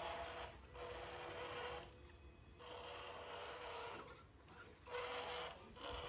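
Small RC crawler's 390-size motor and gearbox whirring faintly in about five short bursts as the truck drives forward and turns.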